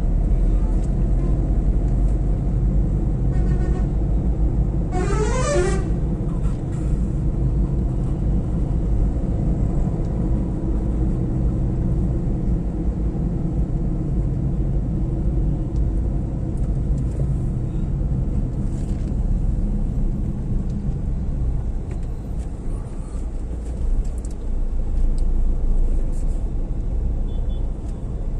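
Steady low road and engine noise of a moving car, heard from inside the car. About five seconds in a vehicle horn honks once briefly, its pitch rising.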